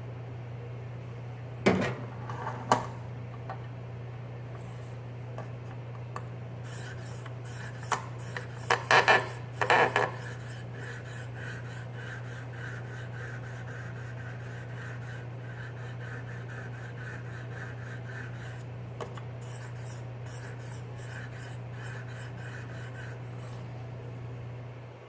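A diamond sharpening plate on a KME guided sharpener being stroked along an AUS-8 steel knife edge in a rhythmic, rasping scrape. There are a few sharp knocks near the start and a cluster of them about 9 seconds in. A steady low hum sits underneath.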